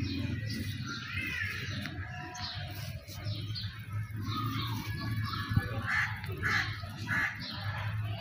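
Birds calling and chirping, with a run of short repeated calls near the end, over a steady low hum. One sharp knock about five and a half seconds in.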